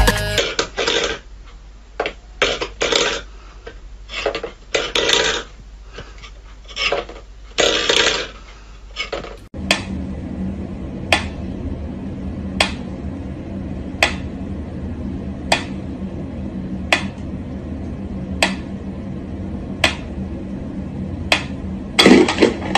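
Mechanical pendulum metronome ticking slowly and evenly, one sharp click about every one and a half seconds, over a faint steady hum. Before it come a few irregular soft scuffing bursts, and near the end there is a louder rustling burst.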